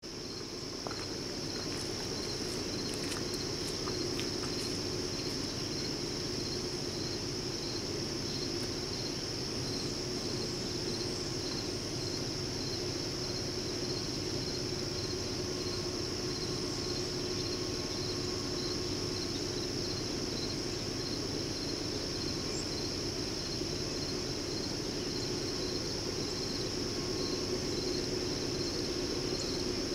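Steady insect chorus of crickets and similar insects: a continuous high buzz with a faint, evenly pulsed chirping under it. A low steady hum runs underneath.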